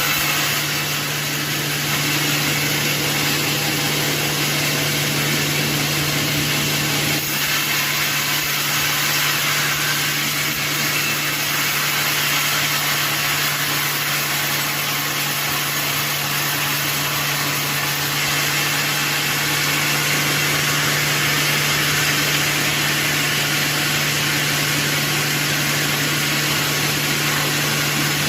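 Sawmill machinery running steadily: a constant engine hum with a strong even drone and a hiss over it, unchanging throughout.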